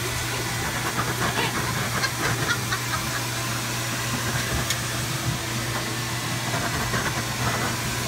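Pet blow dryer running steadily: a constant rushing hiss of air over a low motor hum. A husky's faint yips and grumbles come through it now and then, most between one and three seconds in.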